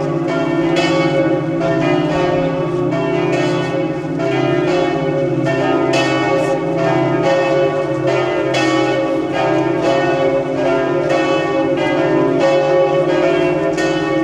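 Several church bells pealing together in a continuous peal, strokes overlapping at a steady pace over the low hum of their ringing.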